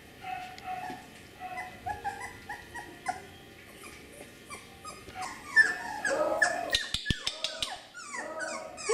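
Beagle puppies whining in short, high-pitched cries, one after another, coming thicker and louder after about five seconds.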